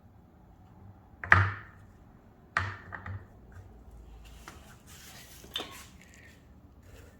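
Two loud, sharp metal knocks about a second apart, with a short ring, then a lighter knock, some scraping and a click, as tools work on the washer's bearing and drum hub.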